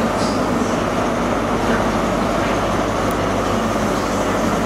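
Class 43 HST power car 43156 running slowly into the platform. Its diesel engine gives a steady, even hum mixed with the noise of the train moving along the rails.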